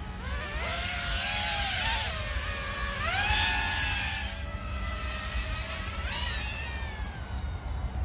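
Eachine & AtomRC Seagull 3.5-inch cinewhoop FPV drone's brushless motors and guarded propellers whining as it lifts off and flies. The pitch climbs with each throttle punch, about half a second in, again around three seconds and around six seconds, then the whine fades as the drone flies away.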